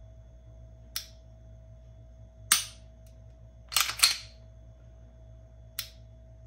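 Sharp metallic clicks from a Glock 19X pistol being worked by hand with its Overwatch Precision Tac trigger: single clicks about one and two and a half seconds in, a quick louder cluster of clicks around four seconds, and a lighter click near the end.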